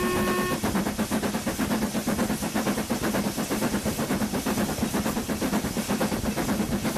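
Steam locomotive's whistle cutting off about half a second in, followed by the locomotive working hard at speed: a quick, steady rhythm of exhaust beats with the hiss and rumble of the running train.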